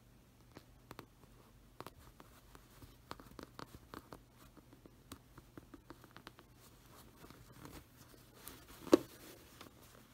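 Faint rustling of quilt fabric and light scratching and clicks as a tapestry needle and thread are worked through the quilt layers by hand, burying a thread end in the batting. One sharp knock about nine seconds in.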